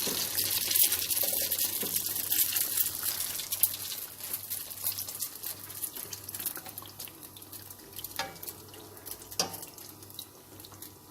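Beignet dough balls deep-frying in hot oil: a dense sizzling crackle that gradually dies down, with a couple of sharper clicks near the end.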